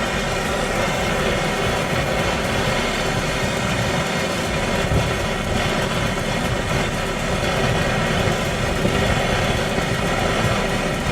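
A motor running steadily, with a constant hum of several even pitches.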